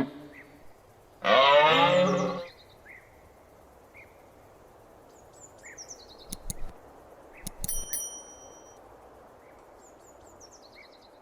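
A moose gives one loud bellow of about a second, its pitch bending as it goes. Afterwards faint bird chirps, a few clicks and a short high whistle sound over a steady outdoor hiss.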